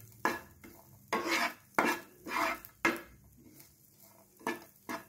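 Wooden spatula stirring and scraping buttered sweet corn kernels around a nonstick frying pan, in irregular strokes about one or two a second.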